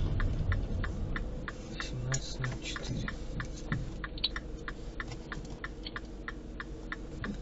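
A car's turn-signal indicator ticking steadily inside the cabin, about four ticks a second, over a low engine hum.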